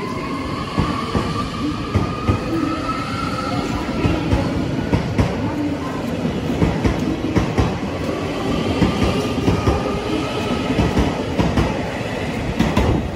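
JR Hokkaido 733 series electric train running past along the platform, gathering speed: a steady rumble with a run of wheel clacks over the rail joints, and a motor whine that rises in pitch twice as it accelerates.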